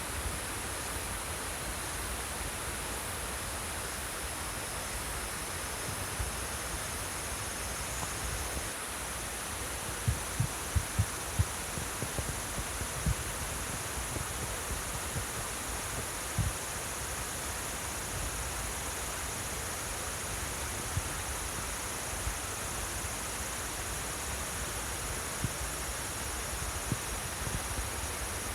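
Flowing stream water with insects trilling steadily at a high pitch. A few short low thumps come about ten to eleven seconds in.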